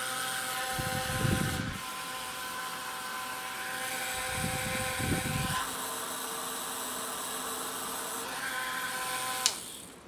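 Small DC hobby motor spinning a homemade fan blade, a steady high whine. There are two brief low rumbles along the way. Near the end a switch clicks and the whine dies away as the motor stops.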